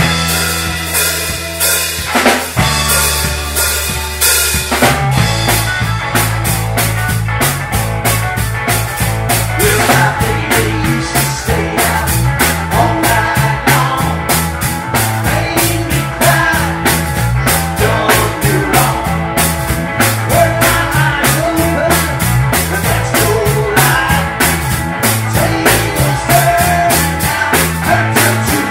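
Rock band music: a drum kit keeps a steady beat with snare and bass drum under bass guitar and electric guitar.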